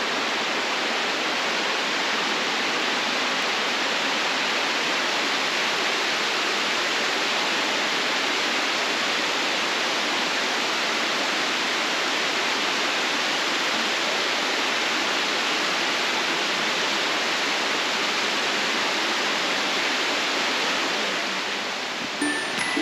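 Steady rush of falling water from a mountain creek waterfall, an even hiss with no breaks, easing slightly near the end.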